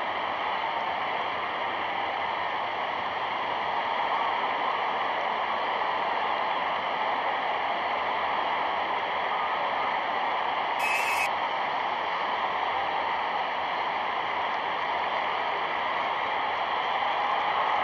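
Steady, even hiss-like noise on an old newsreel soundtrack, with one short tick about eleven seconds in.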